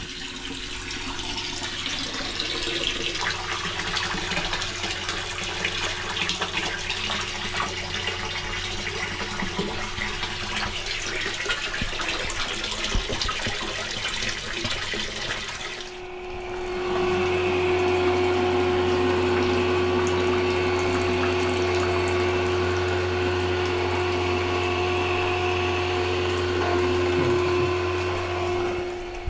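Submersible fecal pump with a grinder running in a cesspool: a steady motor hum under rushing water. About halfway through, the water noise falls away and the hum turns louder and steadier, as the pit is pumped down to the bottom.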